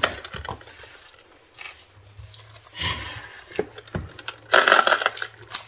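Small plastic beads and clear plastic packaging handled on a table: a few light clicks and crinkling, scraping rustles, the loudest about three-quarters of the way through.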